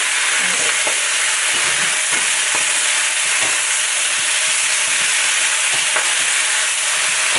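Chinese broccoli and shrimp with sauce sizzling loudly in a very hot wok as they are stir-fried, with light scrapes of the spatula now and then. The strong, steady sizzle is the sign of a well-heated wok and oil.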